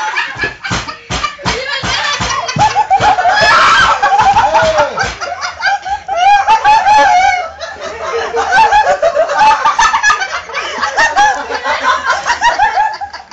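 A group of people laughing together, snickers and giggles overlapping, with a quick burst of laughter in the first couple of seconds and some talk mixed in.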